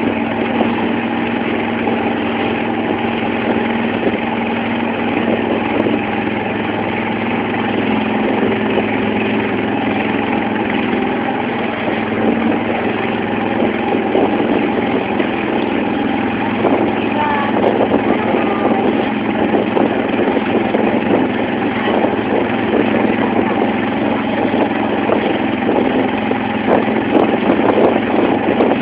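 Engine of a wooden banka motorboat running steadily under way, with water rushing and splashing along the hull; the splashing grows choppier and a little louder in the second half.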